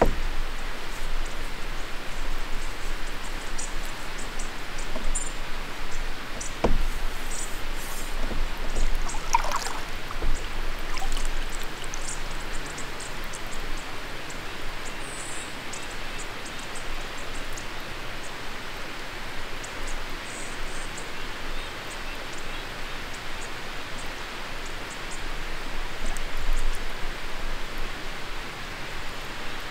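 Soft, steady hiss of water trickling and lapping along a canoe's hull as it glides on calm water. A faint knock comes about seven seconds in, and there are a few short, faint high chirps.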